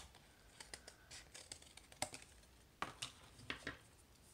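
Scissors snipping through thin cereal-box cardboard: scattered short, sharp snips and clicks, several coming close together in the second half, with light rustling of the cut piece.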